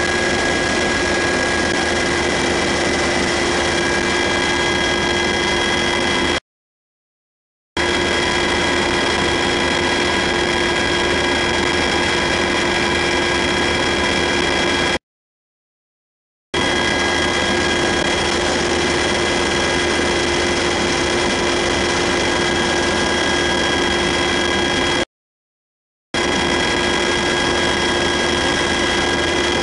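Steady, loud cabin noise of a UH-60 Black Hawk helicopter in flight: engine and rotor din with a constant high whine running through it. The sound cuts out to silence three times for about a second each.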